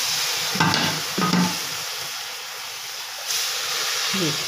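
Water poured from a mug into an empty stainless steel pot, splashing and hissing on the pot's bottom; the pour grows louder about three seconds in.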